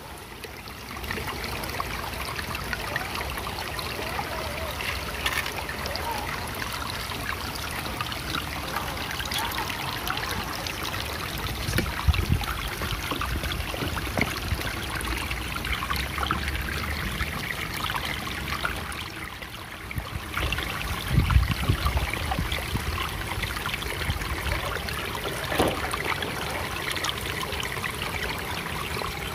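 Shallow creek water trickling and running over rocks, a steady rush, with a couple of low thumps, one about twelve seconds in and another near twenty-one seconds.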